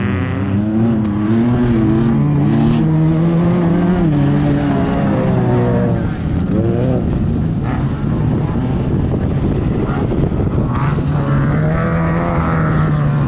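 Desert off-road race vehicle's engine running hard, its pitch rising and falling continuously with the throttle, with a quick rev up about seven seconds in.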